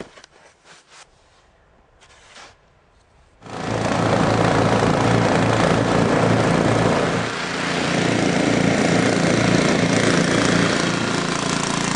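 Faint knocks, then about three and a half seconds in an engine sound starts abruptly and runs loud and steady, with a heavy noisy rush over a low hum.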